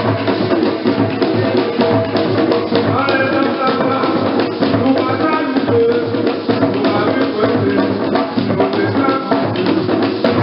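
Live music led by hand drums, with voices singing over the drumming.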